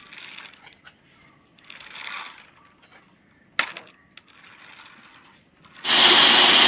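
Angle grinder fitted with a metal-cutting disc, switched on about six seconds in and running steadily at speed with no load. Before that, soft handling noises and one sharp click as the disc is mounted on the grinder.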